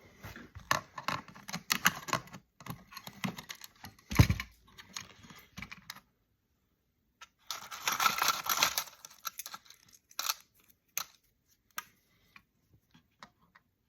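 Irregular light clicks and clatter of small electronic parts and circuit board pieces being handled on a workbench while they are checked with a magnet, with a dull knock about four seconds in and a short rustling, scraping flurry around eight seconds.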